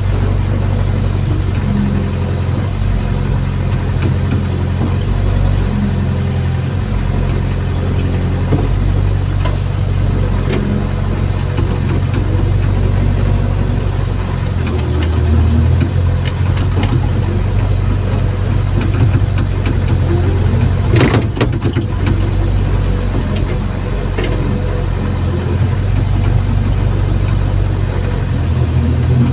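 Hydraulic excavator's diesel engine running steadily, heard from inside the operator's cab, its note shifting a little as the boom and bucket are worked. A short clatter comes about two-thirds of the way in.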